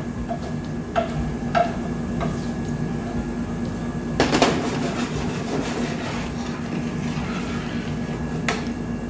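A chef's knife chopping fresh basil on a wooden cutting board in a few sharp knocks, then a louder scrape and clatter about four seconds in as the basil goes into the pan. Near the end a utensil stirs tomato sauce in a stainless steel pan, with a knock against the pan, over a faint steady low hum.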